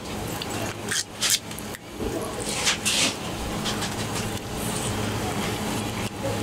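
Knife cutting and scraping through salmon on a wooden cutting board, a few short scraping strokes about a second in and again around three seconds, over a steady low hum.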